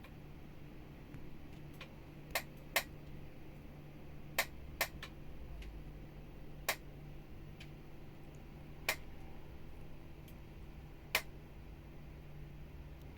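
Sharp plastic clicks, seven in all at uneven intervals and some in quick pairs, as the retaining clips of an LG 38-inch monitor's rear case snap loose while it is pried apart.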